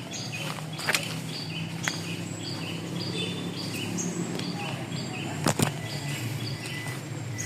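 A steady, low electrical hum, with bird chirps repeating above it and a few sharp clicks.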